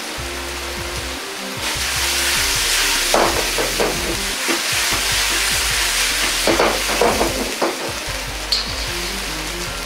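Taro simmering hard in a wok of spicy braising liquid over a high gas flame, bubbling and sizzling, louder from about two seconds in until near the end. A few short clattering bursts come around three and seven seconds in, over background music.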